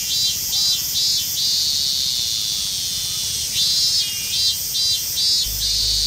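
Minmin cicadas singing: two bouts of the evenly repeated pulsing "min-min" call, about two notes a second, over a steady high hiss. Deep background music comes in near the end.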